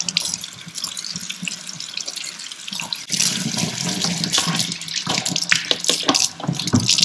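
Tap water running into a sink while goggle frame and lens are rinsed under the stream, splashing off the plastic; the splashing gets louder from about three seconds in.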